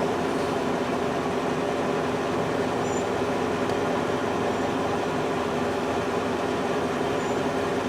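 A steady mechanical hum with several constant tones in it, unchanging in level.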